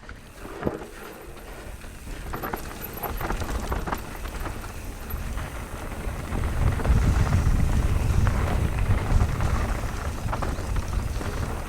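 Nukeproof Mega 290c enduro mountain bike descending a rough trail: tyres rolling over loose ground, with the chain and frame rattling in quick clicks and knocks. A low rumble grows louder about six seconds in.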